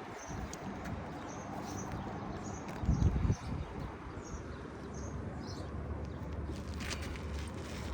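Birds chirping with short, high calls over steady outdoor background noise, and a brief low thump about three seconds in.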